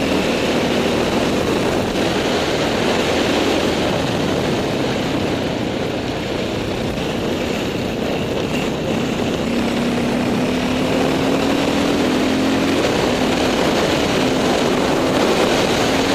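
Dirt bike engine running while riding, heard through heavy wind noise on a helmet-mounted camera; the engine note climbs a little about ten seconds in.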